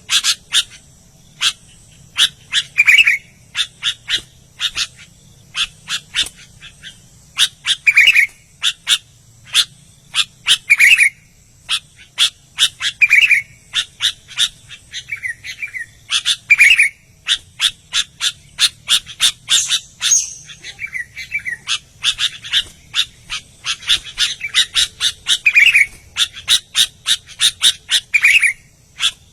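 Sooty-headed bulbul (kutilang) singing without pause: runs of short, sharp chirps with a fuller, lower note every few seconds.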